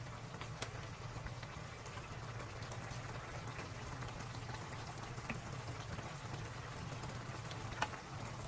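Sautéed chayote with shrimp and ground meat bubbling in a pan: a steady hiss with scattered small pops, one sharper pop near the end.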